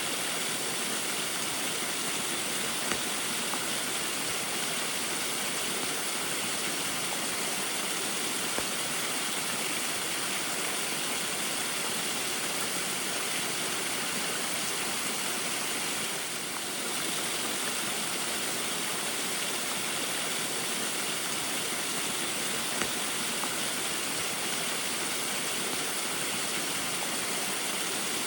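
Small waterfall in the rain: a steady, continuous rush of falling water, with a brief slight dip in level a little past the middle.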